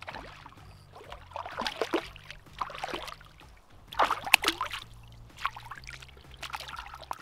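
A hooked perch thrashing and splashing at the water surface as it is brought in and taken by hand: a run of short, irregular splashes, the loudest about four seconds in.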